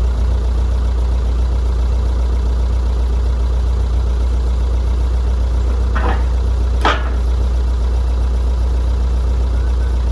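Engine of a 1975 well-drilling rig idling steadily with a low drone. Two short knocks come about six and seven seconds in.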